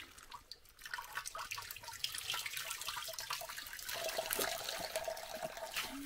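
Spring water running from a metal pipe spout, splashing into cupped hands and dripping into a stone basin.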